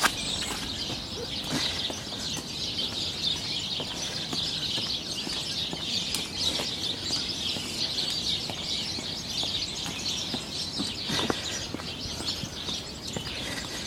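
Many small birds chirping at once in a dense, continuous chatter of short high notes.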